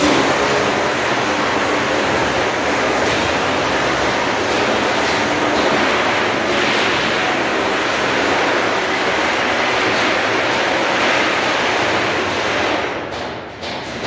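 Steady rushing hiss of a computer-controlled laser cutting machine cutting steel plate, with a short dip in level near the end.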